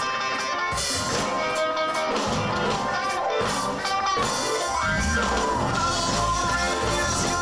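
Rock band playing live: electric guitar and drum kit, with the bass end filling in much fuller about two-thirds of the way through.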